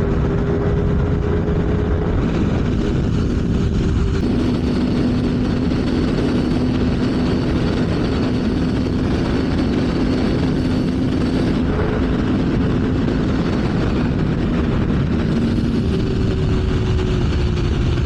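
CFMoto 450SR parallel-twin motorcycle engine running at steady highway speed under thick wind rush. The engine note drops in pitch about four seconds in and holds there, then rises again near the end.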